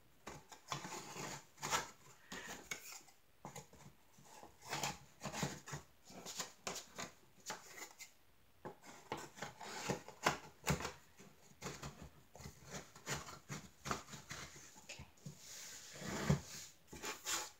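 Wooden panels of a flat-pack tray holder being handled and fitted together: scattered light knocks, taps and sliding rubs of wood on wood and on the tabletop, with one heavier knock near the end.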